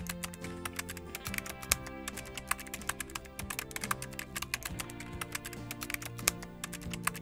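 Computer keyboard typing: quick, irregular key clicks, several a second, over a background music bed of sustained notes.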